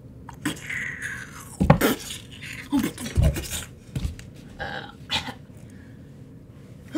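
A few dull thumps and scattered knocks of a person moving about and sitting down on a chair, with short vocal noises in between.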